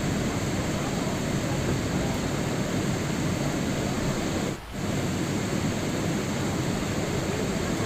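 Steady rain sound, an even hiss of falling rain with no rhythm or pitch, dipping briefly a little past halfway before carrying on.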